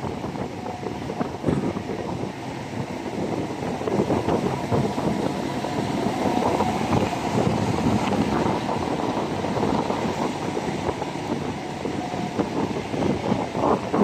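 Wind buffeting the microphone on the roof of a moving jeepney, gusting, over the rumble of the jeepney's engine and tyres on the road.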